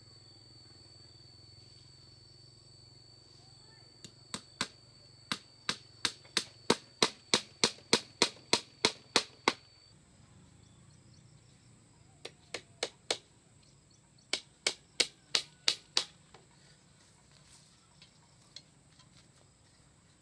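Hammer blows on a bamboo fence rail, nailing it to its post: a run of about seventeen sharp knocks, some three a second, starting about four seconds in, then after a pause two shorter runs of four and six blows.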